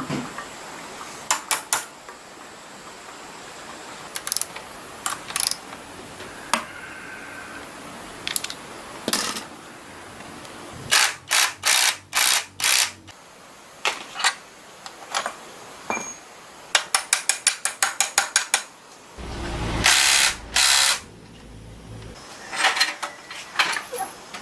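Ratchet wrench and metal tools on engine parts: scattered sharp clicks and clinks, with a quick even run of about a dozen ratchet clicks past the middle, then a louder rasping burst lasting about two seconds.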